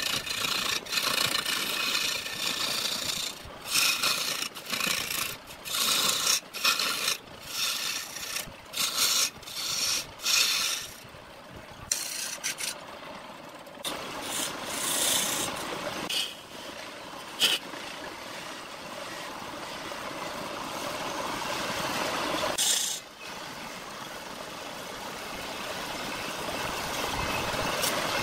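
Turning tool cutting into a log spinning on a wood lathe, scraping off shavings. It makes a quick run of short strokes in the first half, then longer continuous cuts that grow louder.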